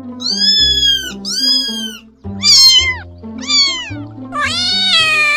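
A cat meowing five times in high, arching calls, the last one the longest, over background music.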